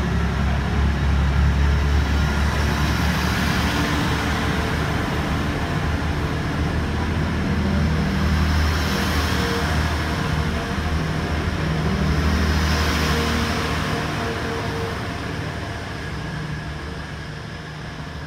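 Passenger train pulling out of the platform and passing close, with a low steady drone and rumble that fades away over the last few seconds.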